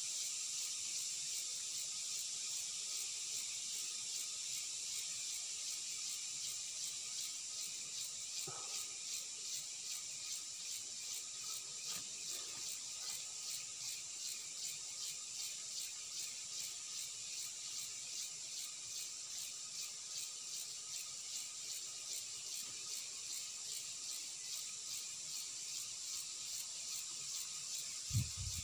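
Steady high-pitched chorus of forest insects with a fast, even pulse, and a brief low thump near the end.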